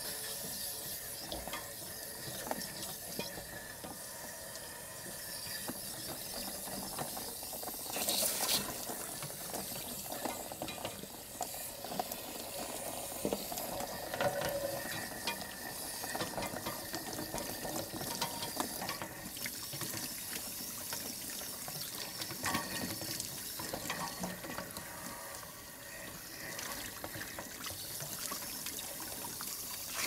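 Water rushing and splashing steadily as a flushing wand sprays inside a Suburban RV water heater tank and runs back out of the open anode port, rinsing out loose scale. There is a louder splash about eight seconds in.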